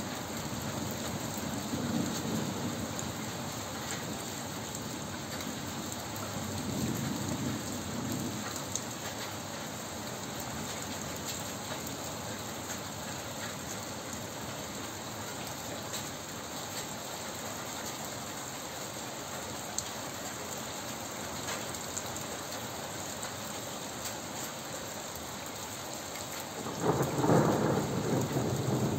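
Steady rain falling, with faint rolls of distant thunder about two and seven seconds in. Near the end a much louder peal of thunder breaks and rumbles on.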